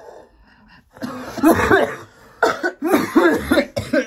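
A person coughing in a fit of several loud bursts, starting about a second in.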